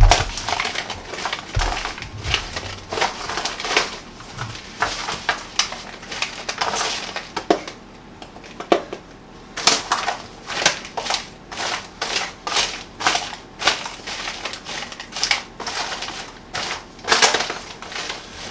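Caramel-coated popcorn being stirred with a silicone spatula in a disposable aluminium foil pan: irregular crunchy rustling and scraping strokes, with a thump at the very start.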